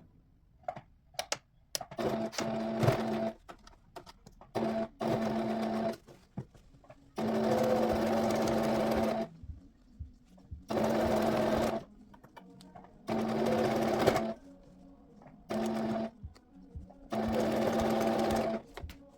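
Domestic electric sewing machine stitching in short runs of one to two seconds, stopping and starting about seven times, with small clicks and knocks in the pauses between runs.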